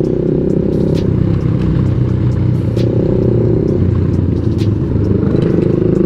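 Suzuki motorcycle's engine running steadily while under way, heard from the rider's position, with a few sharp clicks over the top, about a second in and again near the end.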